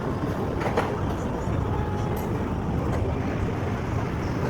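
Street traffic: a steady low rumble of passing vehicles, with a faint click a little under a second in.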